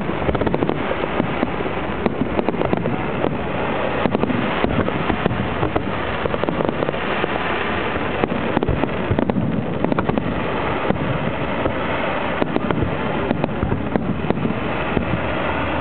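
Aerial fireworks display heard from the crowd: a continuous run of bangs and crackling shells with no let-up, many reports a second.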